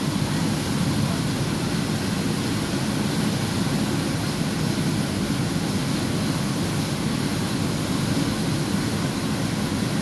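Steady, low rushing of a waterfall pouring into a rocky pool, with the churning water close by.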